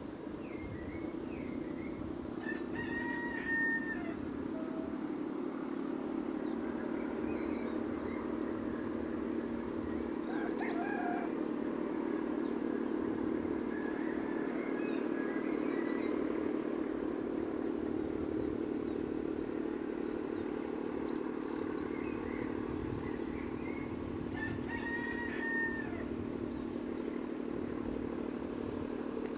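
Diesel locomotive engine running with a steady low drone that grows a little louder towards the middle. Two short high-pitched calls sound over it, one a few seconds in and one near the end.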